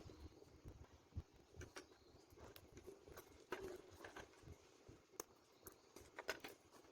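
Near silence with scattered faint, short clicks and light scrapes of hands handling and working a 3D-printed plastic part.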